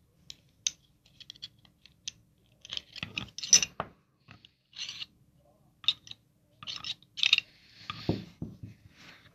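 Metal clicks and scrapes of a 9mm pistol being stripped by hand, its slide and internal parts worked off the frame. Sharp separate clicks come in clusters, loudest about three to four seconds in.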